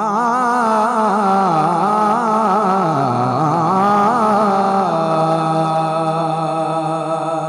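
A man's voice singing a naat into a microphone: a long wordless melismatic line with quick ornamental turns in pitch, dipping low about three seconds in, then settling on one steady held note from about five seconds.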